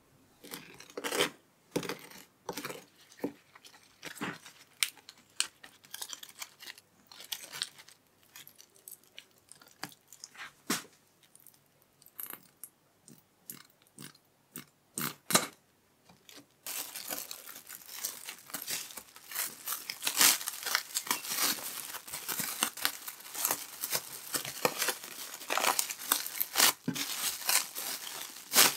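Scattered light taps and clicks as food is handled on a cling-film-covered cutting board. About halfway through, these give way to continuous crinkling of plastic cling film being wrapped tightly around a stacked sandwich.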